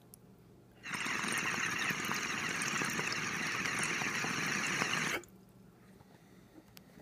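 Water bubbling hard in the base of a glass bong as air is pulled through its downstem, a steady burbling for about four seconds that starts and stops abruptly.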